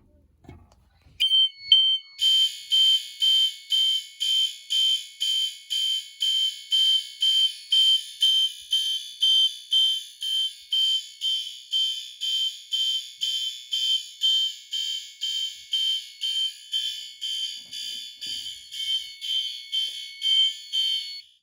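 Fire alarm horn-strobes sounding after a manual pull station is pulled. A steady high tone comes in about a second in and is joined by a horn pulsing about twice a second. They are a System Sensor L-series and a Gentex Commander 1 on one circuit, set to codes that don't synchronise. Both cut off abruptly near the end when the panel is reset.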